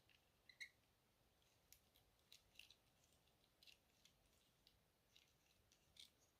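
Faint scattered clicks and light scrapes of a small screwdriver working on a Zippo lighter's metal insert, the strongest click about half a second in.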